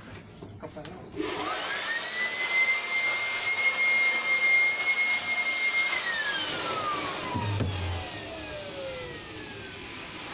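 Vacuum cleaner switched on about a second in, its motor whine climbing quickly to a steady pitch over a rush of air. About six seconds in it is switched off and the whine falls away slowly as the motor spins down.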